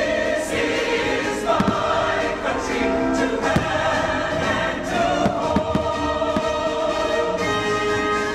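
A choir singing with an orchestra, the music of a fireworks show, with the sharp bangs of firework shells bursting several times, in a cluster over the middle of the stretch.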